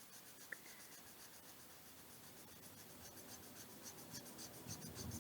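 Near silence: faint room noise with light scratching, a soft click about half a second in.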